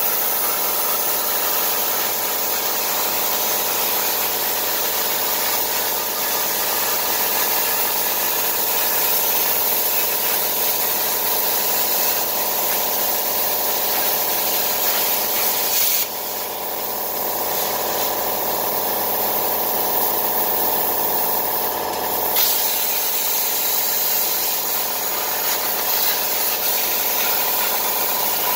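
Everlast PowerPlasma 60 plasma cutter's machine torch cutting metal sheet on a CNC table: a loud, steady hiss of the cutting arc over a steady machine hum. About two-thirds of the way in, the arc's hiss drops away while the hum carries on. Some six seconds later it comes back with a sharp crack as the arc strikes again.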